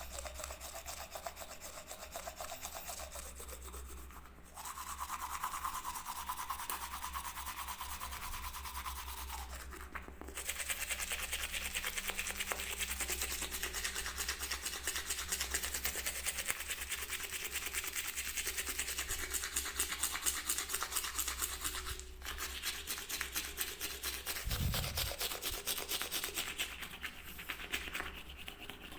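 Toothbrush scrubbing in rapid back-and-forth strokes, with brief pauses three times. There is a dull low bump near the end.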